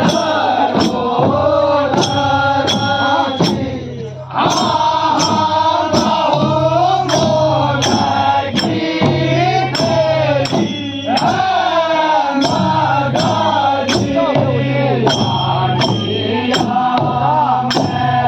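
Villagers singing a traditional Kumaoni Holi folk song together, with sharp percussion strokes keeping a steady beat about twice a second over a low held drone. The singing dips briefly about four seconds in.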